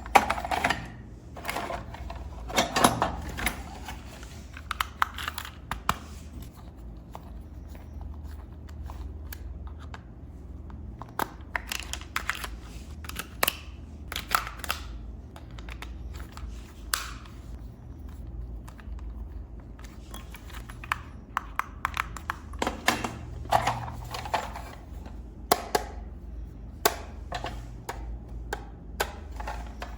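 A toy and its packaging being handled: irregular clicks, taps and short rustles, over a steady low hum.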